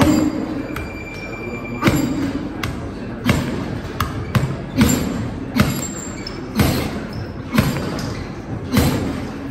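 Gloved punches landing on a hanging punching bag: about a dozen hard thuds, in singles and quick doubles, roughly one a second, each with a short echo in the hall.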